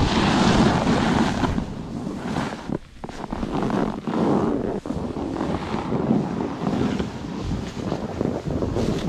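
Wind buffeting an action camera's microphone while snowboarding, mixed with the hiss and scrape of the board over the snow. The rushing noise is unsteady, loudest at first, with short lulls about three and five seconds in.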